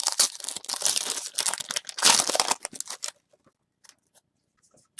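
Football card pack wrapper being torn open and crinkled for about three seconds, loudest about two seconds in, then only a few faint ticks as the cards come out.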